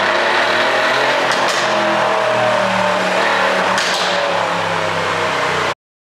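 Mercedes-AMG C63's twin-turbo V8 exhaust running on an ECU tune set up for pops, with two sharp cracks, one about a second and a half in and one about four seconds in. The sound cuts off suddenly near the end.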